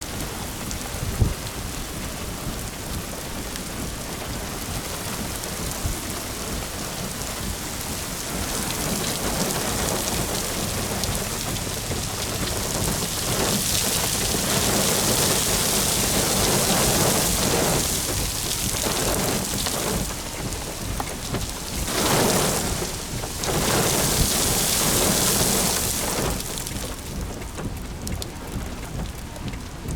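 Thunderstorm rain and wind noise, swelling into heavier gusts through the middle and easing near the end, with one sharp thump about a second in.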